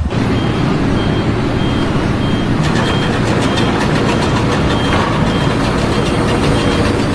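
Heavy vehicle engine running, with a short high beep repeating about twice a second.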